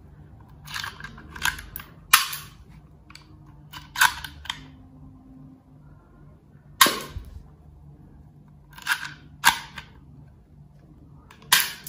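Plastic toy dart pistol being handled and fired with suction-cup darts: a string of about ten sharp clicks and snaps, three of them much louder than the rest.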